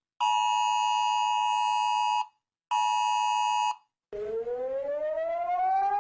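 Emergency alert broadcast sounds: a steady two-tone alert beep held for about two seconds, a short pause, the same tone for about a second, then a siren wail that rises slowly in pitch and starts to fall near the end.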